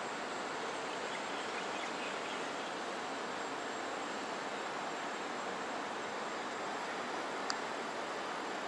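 Steady outdoor background noise: an even hiss with a faint high steady tone over it, and a single short click about seven and a half seconds in.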